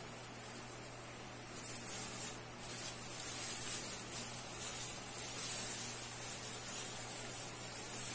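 Metallic tinsel garland rustling and crinkling as a wreath made of it is handled and turned, a continual high, crackly hiss that grows louder after about a second and a half. A faint steady low hum sits underneath.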